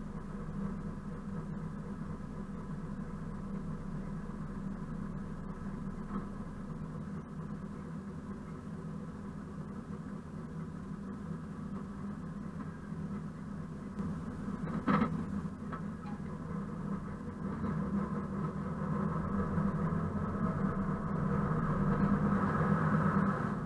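ČKD class 742 diesel-electric shunting locomotive's engine running steadily at low revs, with a single sharp knock about fifteen seconds in. Near the end the engine note rises and grows louder as power is applied.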